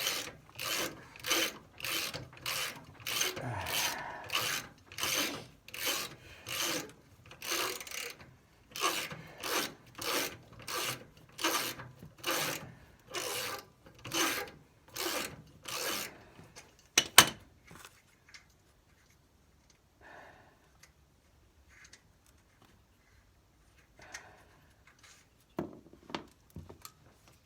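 A socket ratchet being worked back and forth on a bolt, about two ratcheting strokes a second, for some sixteen seconds. Then one sharp metallic click, followed by only faint handling sounds.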